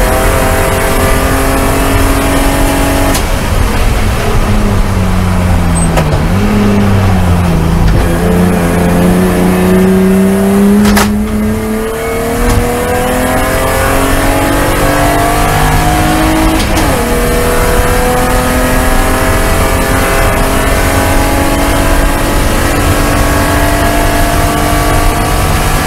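BMW race car's straight-six engine heard from inside the cabin under hard driving. Its pitch falls a few seconds in as the car slows for a corner, then climbs as it accelerates, with two upshifts partway through, and holds at high revs near the end.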